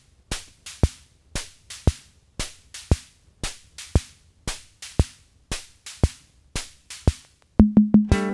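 Song intro: a sparse percussion beat of sharp clicks and low thumps, repeating in a steady pattern about once a second. Near the end a guitar comes in with plucked and strummed notes.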